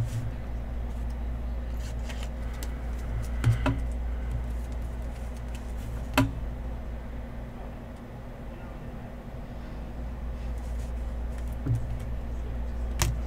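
A steady low hum with a few faint clicks and taps as trading cards are handled, the sharpest about six seconds in.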